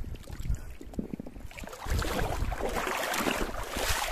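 Seawater sloshing and splashing with wind buffeting the microphone, turning louder and denser about two seconds in.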